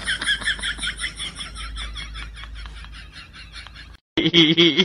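Rapid, repeated high-pitched chirping calls from a bird or small animal, about five or six a second, slowly fading. About four seconds in they cut off abruptly, and a different, steady pitched sound starts.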